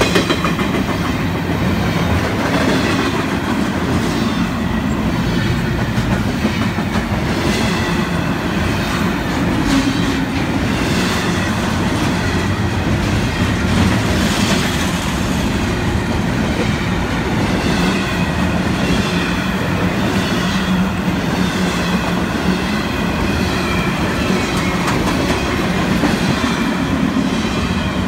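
Intermodal freight cars of a long train rolling steadily past at speed. The wheels give repeated clacks over the rail joints above a continuous rumble.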